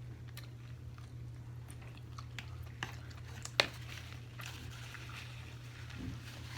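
Close-miked chewing and mouth sounds, with scattered small clicks and one sharp click about three and a half seconds in, over a steady low hum.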